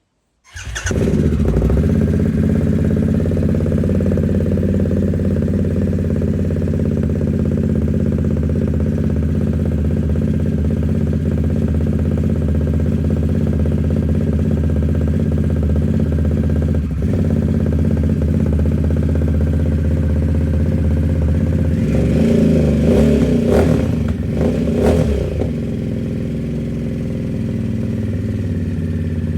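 A 2022 Harley-Davidson Nightster's V-twin idling steadily through its exhaust, with two short throttle blips revving it up near the end before it drops back to idle.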